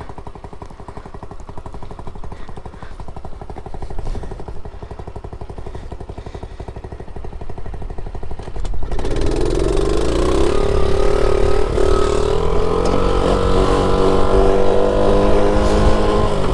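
Small 50cc pit bike engine idling with quick, even firing pulses. About nine seconds in the revs climb and then hold steady and louder as the bike gets under way.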